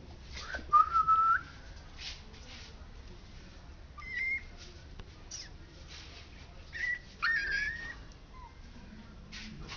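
Puppy whining: a few short, high-pitched whines, each about half a second long. The loudest comes about a second in, with more near four seconds and around seven to eight seconds in.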